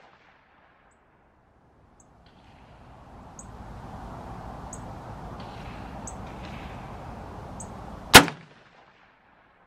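A single rifle shot from a PSA JAKL AK-pattern rifle, a sharp crack with a short decay, about eight seconds in. A faint steady rushing noise builds up a few seconds before it.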